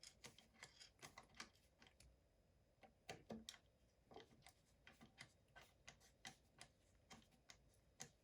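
Faint, irregular small clicks of a T10 Torx driver turning and seating the small screws of a Magpul enhanced magazine release, metal tool on metal screws.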